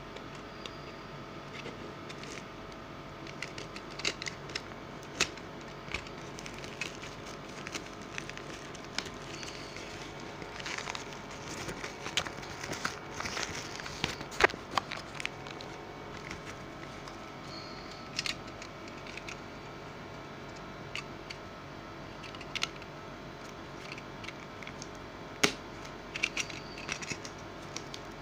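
Plastic mailer bag crinkling and tearing as it is opened by hand, with scattered rustles and clicks and a few sharper snaps, the loudest about halfway through and near the end. A steady low hum runs underneath.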